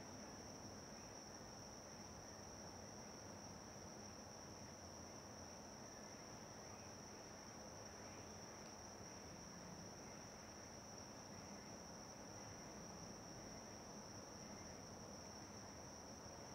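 Crickets singing: one steady high-pitched trill that holds unbroken, over faint background hiss.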